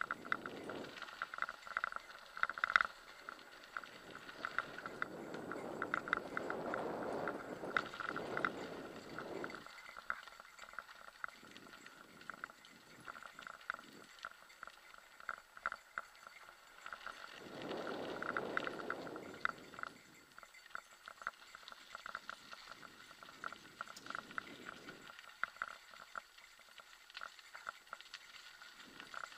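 Mountain bike rattling and ticking as it rolls over a dirt trail, with many small clicks and clatters throughout. Two longer stretches of rushing noise rise and fall, one a few seconds in and another past the middle.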